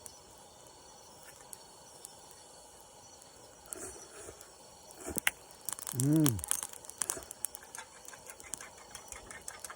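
A person's short closed-mouth hum that rises and then falls in pitch, about six seconds in. It is followed by a run of many quick small clicks and ticks.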